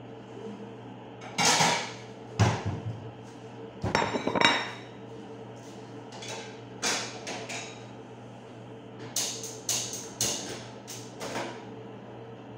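Kitchenware being handled: irregular sharp knocks and clinks of dishes as they are taken out and a plate is set down on the counter, over a steady low hum.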